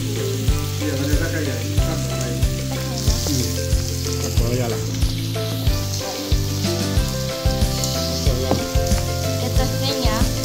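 Pork slices and enoki mushrooms sizzling on an electric tabletop grill pan, over background music with a regular beat.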